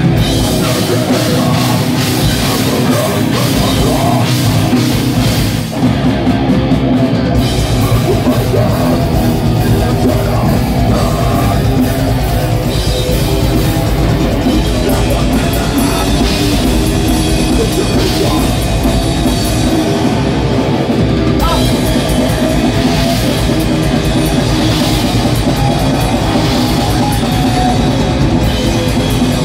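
Live groove metal band playing loud: distorted electric guitars, bass guitar and drum kit, dense and driving, with a brief break about six seconds in.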